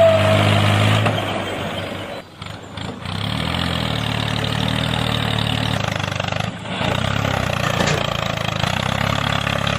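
Tractor engine running steadily with a low hum. It drops out briefly about two seconds in, picks up again about a second later, and runs on with another short break later on.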